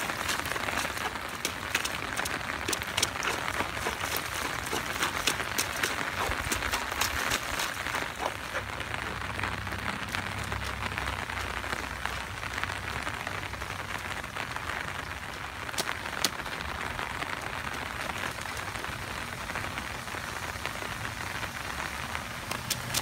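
Steady rain falling on wet pavement, a constant hiss with many small drop ticks. Near the start, rubber rain boots splash in the puddles.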